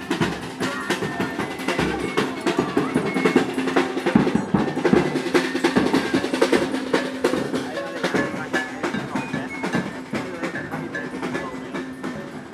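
Marching-band drum section, snare and bass drums, beating a fast, steady rhythm.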